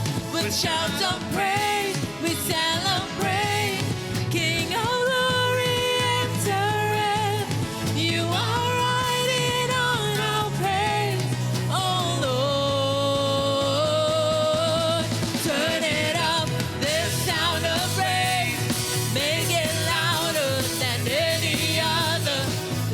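Contemporary worship song: a singer's voice over full band backing with a steady bass line.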